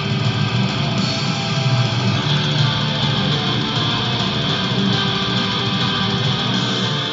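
Heavy metal music with electric guitar, starting abruptly and running steadily.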